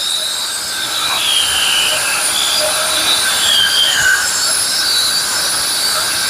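Concrete saw cutting into a concrete floor: a loud, steady high-pitched screech with whining tones that waver in pitch.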